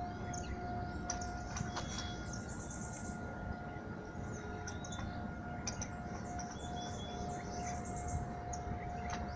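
Small birds chirping in quick high trills, twice in quick runs, over a steady, unwavering high tone of unknown source.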